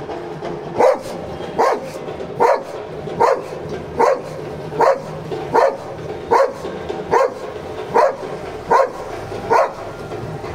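A dog barking in a steady, even rhythm, a little more than one bark a second, about thirteen barks, over a steady low hum.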